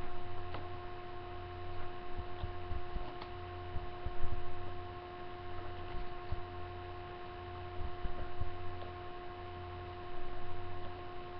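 Steady electrical hum with a few faint clicks as a deck of playing cards and its box are handled.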